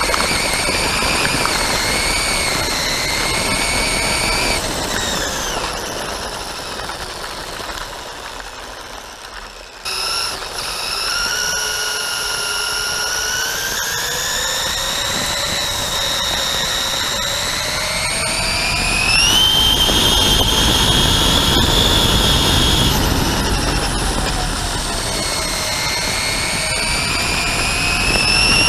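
Electric motor and gear drivetrain of a Traxxas Slash 2WD RC truck whining as it drives, heard from a camera mounted on the truck. The pitch rises and falls with throttle and speed over a rough running noise from the tyres. The sound fades, then picks up sharply about ten seconds in, and reaches its highest, loudest whine about two-thirds of the way through.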